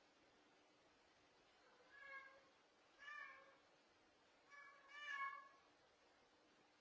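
Cat meowing softly four times, the last call the longest and loudest.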